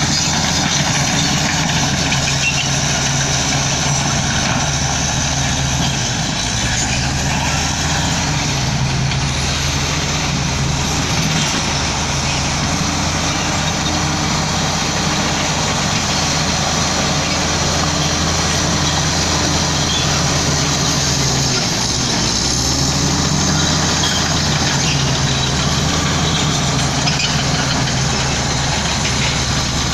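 Heavy diesel engine of earthmoving equipment running steadily, its pitch dropping and picking back up about six seconds in and again a little past twenty seconds.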